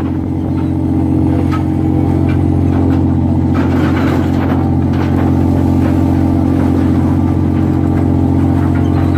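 Steady low drone of a crab boat's engine and deck machinery running, with some knocks and clatter as the crab pot is tipped and king crabs spill onto the metal sorting table about four seconds in.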